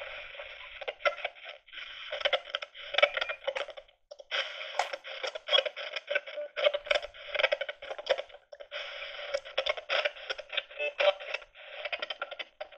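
Spirit box radio scanner sweeping through radio stations: a thin, choppy stream of static and snatches of broadcast sound, cutting in and out with several brief dropouts.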